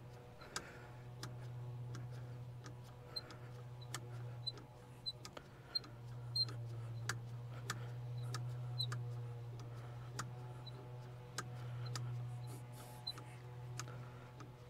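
Hand primer pump on top of a diesel tractor's fuel filter being worked over and over, a light click about every two-thirds of a second, to purge air from the fuel system after a filter change. A steady low hum runs underneath.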